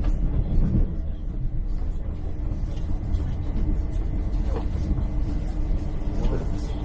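Hitachi Class 800 Intercity Express Train heard from inside the carriage while running: a steady low rumble with a faint steady hum above it.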